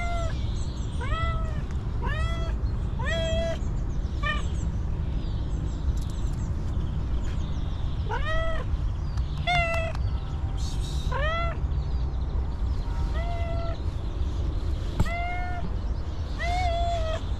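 Hungry stray cat meowing again and again: short calls that rise and fall in pitch, coming in runs about a second apart with short gaps between runs, over a steady low rumble.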